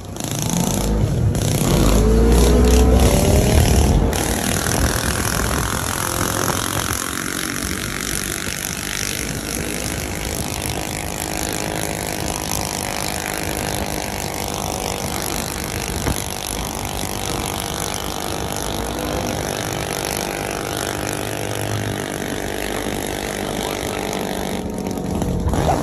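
Small engine running under way, rising in pitch as it accelerates over the first few seconds, then holding a steady drone at cruising speed. Wind rumbles on the microphone during the acceleration.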